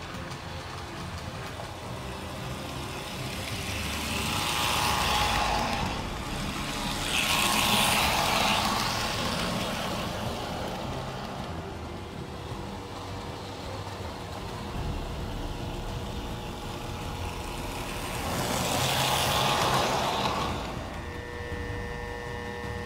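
American Flyer S-gauge Santa Fe PA/PB diesel set running on a test run after its rebuild: a steady rumble of the electric motor and wheels on the rails, swelling three times as the train passes close by. Near the end a steady high tone comes in.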